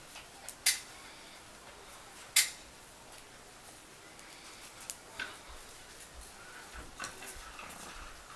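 Metal knitting needles clicking against each other during hand knitting. There are two sharp clicks in the first few seconds, then fainter ticks later on.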